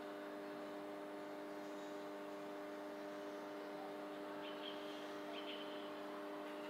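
Steady low hum of background noise, with a few brief, faint high chirps from a bird about four and a half and five and a half seconds in.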